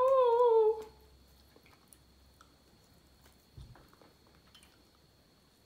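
A drawn-out spoken word trails off about a second in. After it come faint, scattered clicks and crackles of a cooked lobster tail's shell being picked apart by hand, with one soft thump in the middle.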